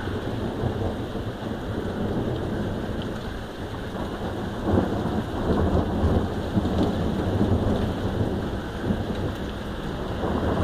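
Thunder rumbling over steady heavy rain, with the rumble swelling about halfway through.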